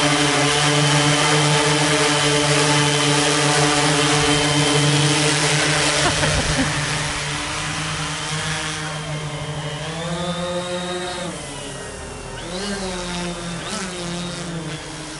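3D-printed quadcopter with four Emax MT3515 brushless motors and 15-inch propellers hovering close by: a loud, steady propeller hum made of several tones. After about six seconds it grows quieter as the craft flies off and climbs, its pitch rising, dipping and rising again as the motors change speed.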